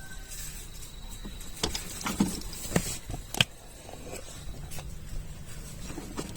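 Scattered light clicks and knocks of a car seat belt assembly being handled and fitted, over a low background hum.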